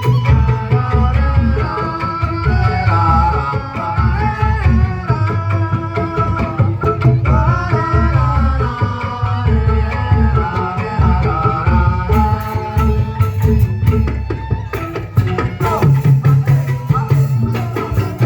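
Music with a steady hand-drum beat under a wavering melody line.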